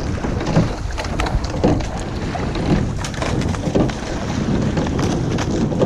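Wind on the microphone and water rushing past a rowing shell under way, with repeated short knocks from the rowing.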